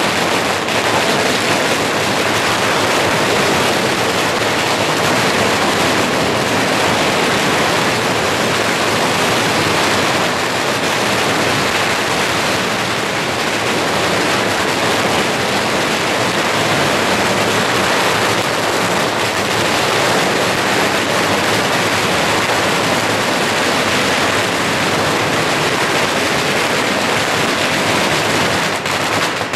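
Dense, unbroken crackling of a 犁炮 barrage of firecrackers, loud and steady, dropping away suddenly at the very end.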